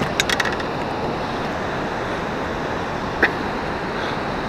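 Steady rushing noise of wind and water around a drifting fishing boat, with a quick run of light clicks at the start and a single click about three seconds in.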